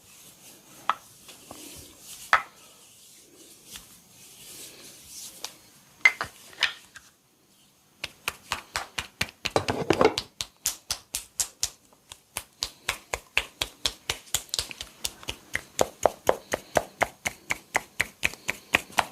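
Massage by hand: soft rubbing with a few scattered taps, then after a brief pause about halfway through, a fast, even run of sharp slaps from chopping percussion strokes of the barber's hands, about five or six a second.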